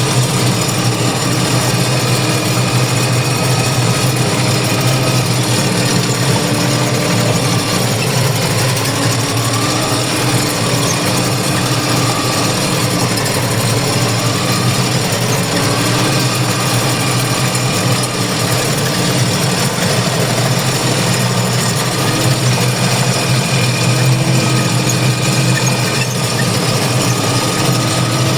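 The engine of peat-harvesting machinery running steadily at working speed, with whining tones that wander slightly up and down in pitch over a constant low hum.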